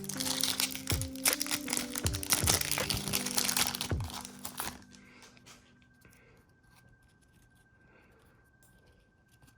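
A foil booster-pack wrapper crinkling and tearing open over background music, for about the first four and a half seconds; after that it is near quiet.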